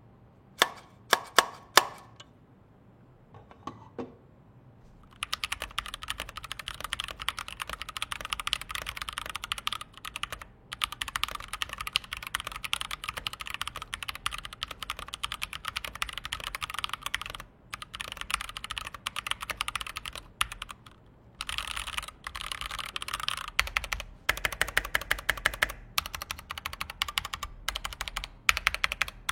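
Typing test on a Pressplay Voyager 68 mechanical keyboard: a few separate keystrokes, then after about five seconds fast continuous typing, a dense clatter of key clicks with a few short breaks.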